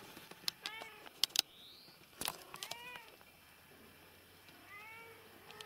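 A cat meowing three times, each a short meow rising and falling in pitch. A few sharp clicks come between the first two meows.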